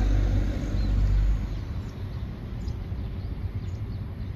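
Outdoor background noise: a low rumble that drops away about a second and a half in, leaving a steady, quieter hiss with faint short high chirps.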